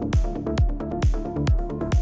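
Electronic dance music: a steady kick drum a little over two beats a second, with cymbal hits and a stepping synth melody.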